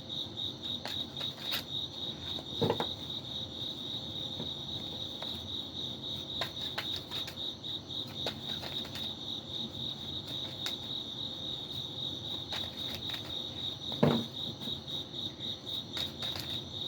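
A cricket chirping steadily in a fast, even pulse, with scattered light clicks and two brief low sounds, one about three seconds in and one near the end.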